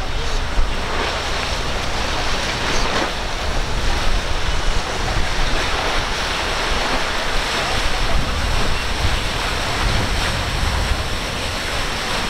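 Water rushing and splashing from a fast-running cruiser's bow wave and wake, with wind buffeting the microphone as a steady low rumble.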